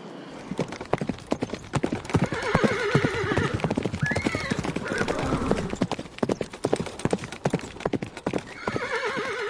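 Horse hooves clip-clopping in quick succession, with a wavering horse whinny about two seconds in, a short rising-and-falling call around four seconds, and another whinny starting near the end.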